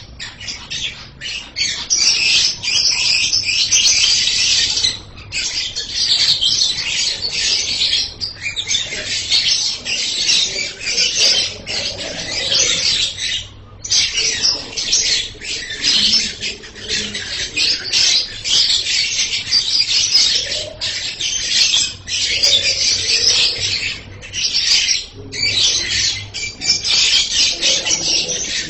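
Pet lovebird chattering shrilly in long unbroken runs of high-pitched notes, with a few short pauses.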